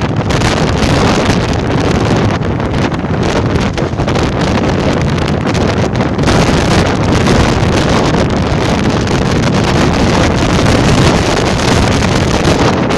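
Strong wind blowing hard across the microphone, a loud continuous rumble with no break.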